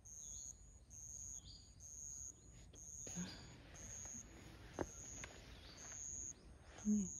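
An insect calling in high-pitched, evenly spaced pulses, about one a second, with short faint bird chirps between them. A brief low voice sound comes near the end.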